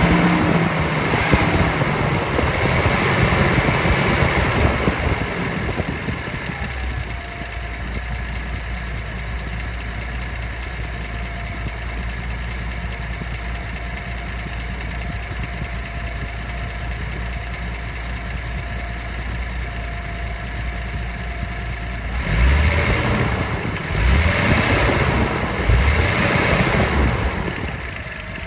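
Nissan L20ET turbocharged straight-six engine running at raised revs for the first few seconds, settling to a steady idle with a faint steady whine, then revved up in a few short bursts near the end. The owner suspects an abnormal noise from the engine.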